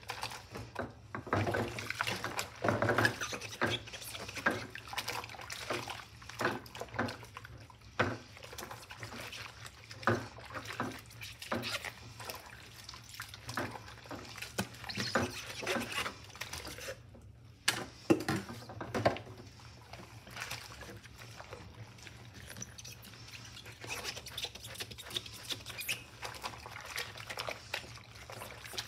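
Green rubber-gloved hands scrubbing a clear tumbler with a sponge in a sudsy stainless-steel sink: irregular rubbing of sponge and glove on the tumbler with sloshing of soapy water. The scrubbing pauses briefly a little past halfway.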